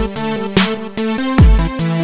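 Electronic dance music with a deep, falling kick drum, sharp snare and hi-hat hits and held synth notes over a steady beat.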